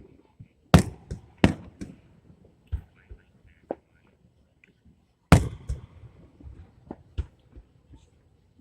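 Aerial fireworks shells bursting: a string of sharp booms at uneven intervals, the loudest about five seconds in, trailed by smaller pops.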